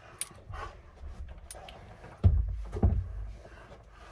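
Two heavy thumps about half a second apart, with small clicks and knocks around them: bodies climbing into the back of a pickup truck.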